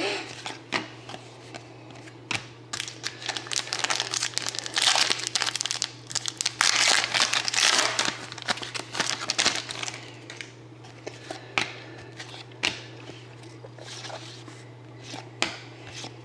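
Foil trading-card pack wrappers being torn open and crumpled, a dense crinkling from about three to ten seconds in, with scattered lighter crinkles and ticks before and after.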